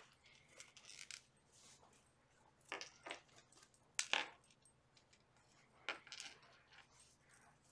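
Faint rustling of seam-binding ribbon being handled and tied, with a few light metallic clinks from bangle bracelets and rings. The loudest clink comes about four seconds in.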